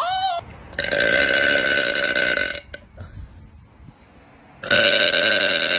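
A woman's long, loud burps: two of them, each nearly two seconds, the second starting about four and a half seconds in.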